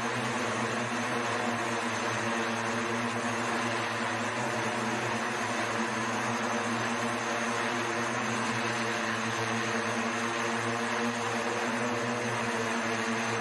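SkyDrive electric multi-rotor flying car hovering: its rotors give a steady, even hum with a hiss of rushing air over it.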